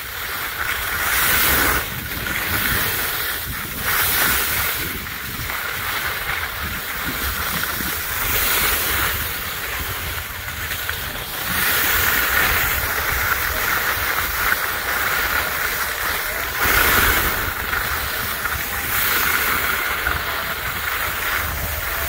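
Steady scraping hiss of the filmer's own skis or board sliding over hard-packed, icy snow on a downhill run. It swells and eases every second or two as the edges bite and release, with a low wind rumble on the microphone.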